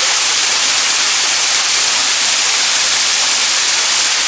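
Rushing water, a steady loud hiss that does not change.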